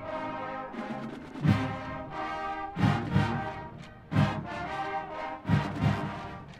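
Marching band playing: brass holding full chords, punctuated by about six heavy drum hits.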